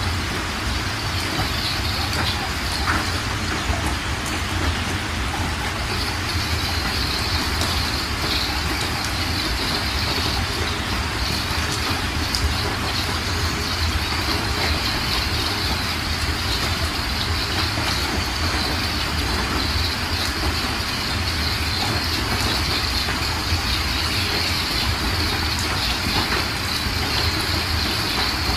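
Floodwater rushing fast over stones and gravel, a loud, steady churning of water with a deep low rumble.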